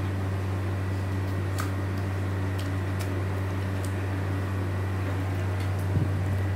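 Steady low mechanical hum, unchanging throughout, with a few faint clicks as hands work the marinated meat into the lined pot.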